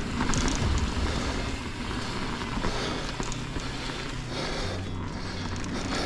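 Rocky Mountain Altitude mountain bike rolling along a dirt singletrack covered in dry fallen leaves: steady tyre noise on dirt and leaves, with scattered clicks and rattles from the bike.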